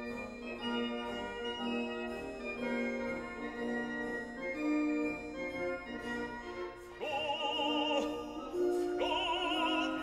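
Background music: sustained organ-like keyboard chords. About seven seconds in, an operatic singer enters, singing with wide vibrato.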